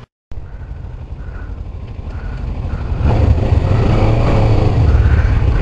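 Kawasaki Ninja 650's parallel-twin engine idling with a steady low rumble, which gets louder about three seconds in. The sound opens after a split second of silence.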